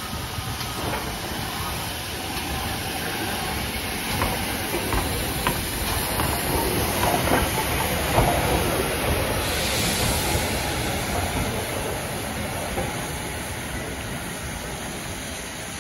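Manor-class 4-6-0 steam locomotive 7822 Foxcote Manor running past at close range, with steam hissing and the wheels clattering on the rails. It is loudest about eight seconds in, has a burst of hissing steam about ten seconds in, and fades as the engine moves away.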